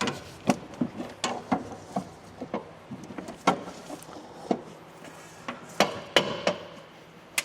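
Irregular knocks and clunks, about fifteen in all, as a Subaru STI's rear strut assembly is wiggled and knocked against the suspension and body to work it free of a mount where it is catching.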